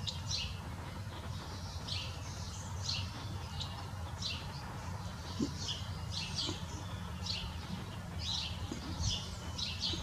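Small songbirds chirping over and over: short, high, downward chirps about twice a second, over a steady low background rumble.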